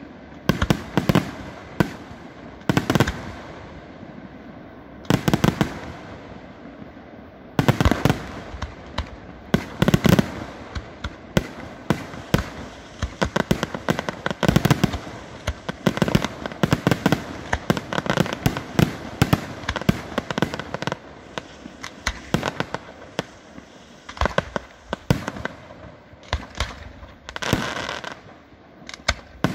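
Aerial firework shells bursting in a professional display: sharp bangs, many in quick runs, with a short lull a few seconds in and dense volleys through the middle.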